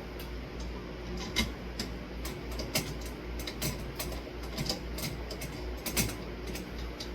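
Irregular small clicks and taps of hand work on metal fan parts as a screw is fitted into the ceiling fan, over the steady hum of a pedestal fan running.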